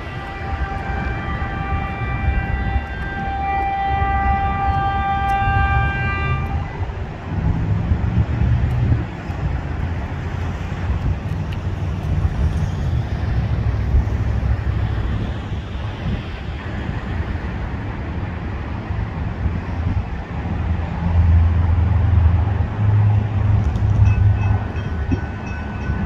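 Horn of a Stadler FLIRT diesel multiple unit sounding a multi-note chord for about six and a half seconds on approach to a grade crossing. It is followed by the steady low rumble of the approaching train. A bell starts ringing near the end.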